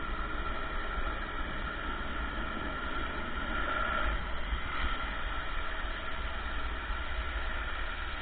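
Ryobi RY14122 electric pressure washer running, its 1,700 psi water jet spraying steadily against a vehicle's body, slightly louder about four seconds in.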